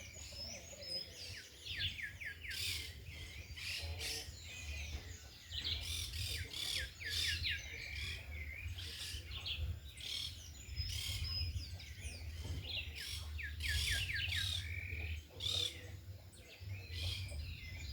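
Several small birds chirping and twittering together in quick, overlapping calls and trills, over a low, uneven rumble of wind on the microphone.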